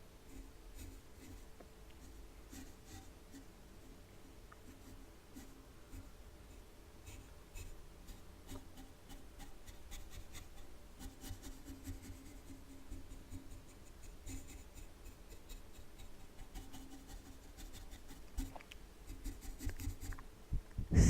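A brush stroking across a microphone in ASMR style: soft, irregular scratchy brushing strokes that grow somewhat louder and busier in the second half.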